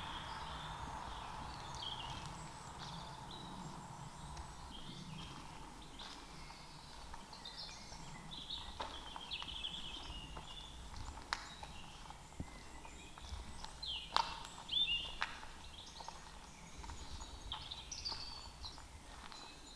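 Woodland birds chirping and singing now and then over a low background rumble, with irregular footsteps on a mown grassy path.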